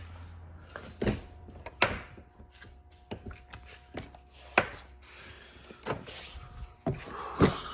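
Irregular knocks and clicks of hard objects being handled and set down, about a dozen sharp hits at uneven spacing, with the loudest about halfway through and near the end.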